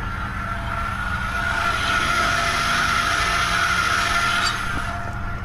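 A vehicle engine idling with a low rumble, joined by a steady whine and a hiss that swells for about three seconds in the middle.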